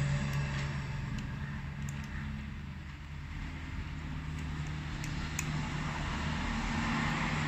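Steady low mechanical hum, with a few faint light clicks.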